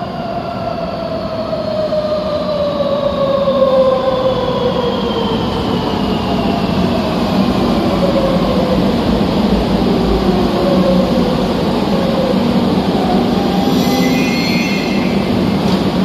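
Madrid Metro train pulling in and braking, its traction motors whining in a steadily falling pitch over a steady rumble, growing louder. A brief high squeal comes near the end.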